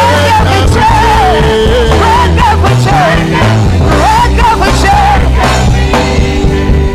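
Live worship band music at full volume, with a steady bass, drums and a high melody line that wavers up and down.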